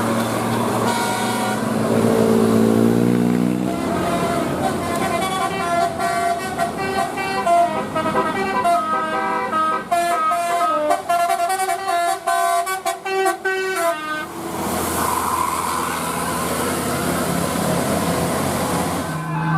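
Telolet basuri musical horn playing a fast melody of many short notes for about ten seconds, over a running vehicle engine whose pitch rises a few seconds in. Near the end the horn stops and a steady rushing noise takes over.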